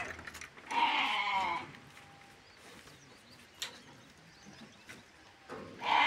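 Sheep bleating: one call about a second in and another near the end.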